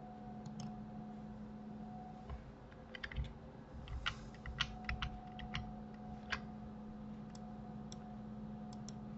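Scattered clicks of a computer keyboard and mouse, a dozen or so, bunched between about three and six and a half seconds in, over a faint steady low hum.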